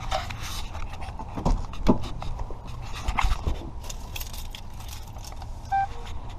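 Scattered light metallic clinks and jangles over a low steady rumble, with a brief short tone about six seconds in.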